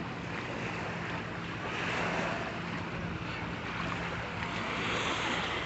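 Steady rushing noise of wind and open water, with no distinct calls or splashes standing out.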